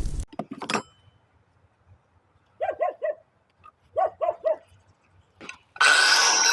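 A small dog yapping in two quick bursts of three short, high barks. Near the end, a power tool starts with a loud, steady, high whine.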